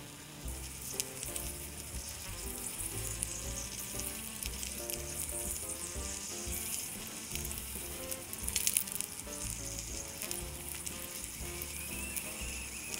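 Flour-dusted salmon fillets sizzling as they fry in oil in a miniature stainless-steel saucepan: a steady hiss with scattered small pops and spatters, a cluster of louder ones about two-thirds through. Soft background music plays underneath.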